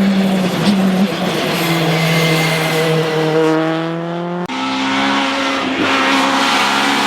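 Race car engine at a hill-climb, running hard under load. Its pitch drops about a second in, creeps up, then jumps sharply about four and a half seconds in and holds there.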